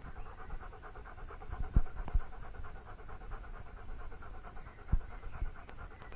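German Shepherd Dog panting in a quick, even rhythm. A few dull knocks sound about two seconds in and again near five seconds.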